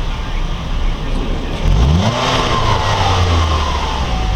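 2013 Chevrolet Malibu LT's four-cylinder engine, stock exhaust, idling, then revved once about two seconds in, rising quickly and dropping back to idle.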